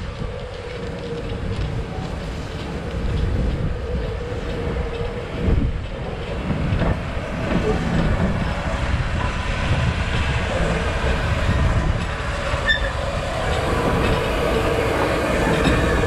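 Midland Railway 4F 0-6-0 steam locomotive No. 43924 rolling slowly along on its own, tender first, its wheels clicking over the rail joints. It grows louder as it draws alongside.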